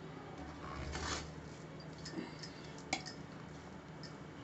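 A spoon working through cooked khichdi in a pressure cooker: a soft squelchy scrape about a second in and a few light metallic clicks, the clearest near three seconds.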